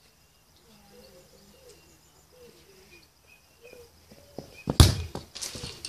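Faint outdoor ambience with a few short bird chirps. About four and a half seconds in comes a loud, sharp thud, followed by two more knocks in quick succession.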